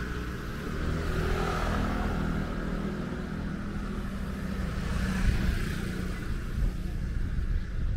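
Street traffic: a motor vehicle's engine hum and tyre hiss as it passes by.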